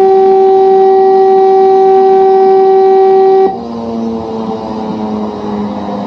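A loud, steady horn tone that cuts off suddenly about three and a half seconds in, leaving a quieter, lower, slightly wavering drone with a rushing noise.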